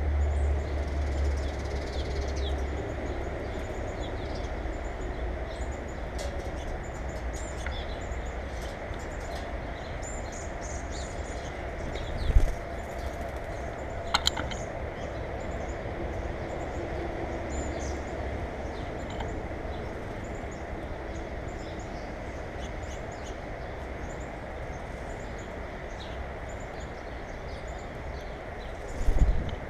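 Small birds chirping in short, scattered calls over a steady low rumble of background noise. There are two low thumps, one about twelve seconds in and one near the end, and a sharp click a couple of seconds after the first.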